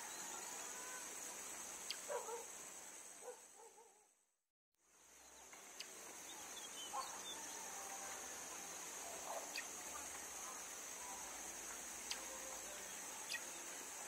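Faint outdoor ambience: a steady high-pitched insect drone, with a few short, faint bird chirps. The sound fades out to silence and back in a little past four seconds in.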